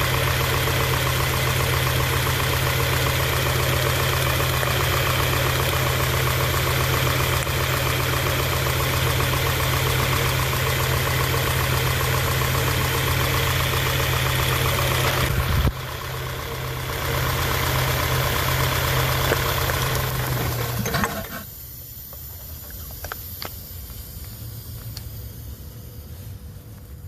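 1991 Honda Prelude Si's B21A1 2.1-litre four-cylinder engine idling rough with a misfire. It gets quieter about two-thirds of the way through and stops near the end, leaving a few faint clicks.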